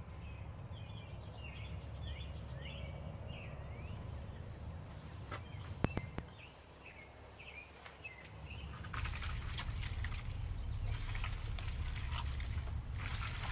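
Small birds chirping in short repeated calls over a low steady rumble. About two-thirds through, the sound changes abruptly to a louder rumble with scattered clicks and crackles.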